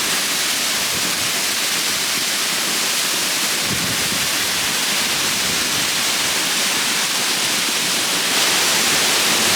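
Waterfall running full and swollen after a rainstorm: a steady rush of falling water.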